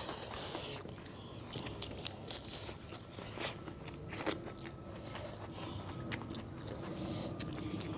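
Close-miked eating sounds from a dhido and chicken mukbang: chewing, with irregular wet mouth clicks and scattered crunches.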